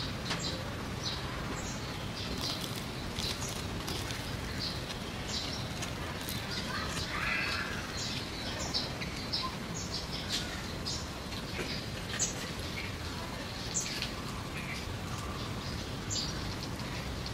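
Small birds chirping: short high chirps scattered irregularly, a few each second, over a steady background hiss.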